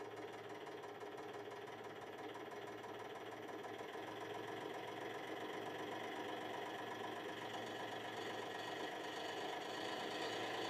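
Hydraulic press's pump motor running with a steady hum under heavy load, slowly growing louder as the pressing force climbs past 16 tonnes on a steel screw jack.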